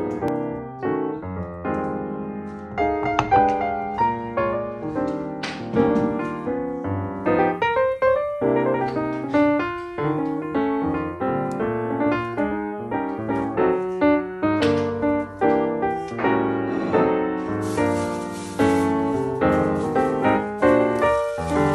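Background piano music, a stream of struck notes that ring and fade.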